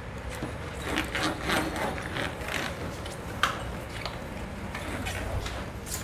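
A wet cloth in a rubber-gloved hand wiping across the wire condenser coil on the back of a water dispenser, rubbing and scraping with many small irregular clicks as it catches on the wires.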